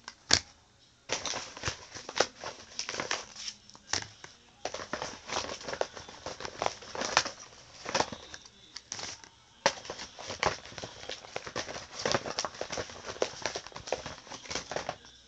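Hands rummaging through a package of small wrapped items: irregular crinkling and rustling of packaging with scattered clicks and knocks, the sharpest about half a second in.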